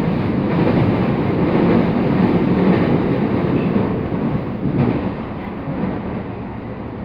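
E217-series electric commuter train running, heard from inside the carriage: a steady rumble of wheels on rail that eases off a little about five seconds in.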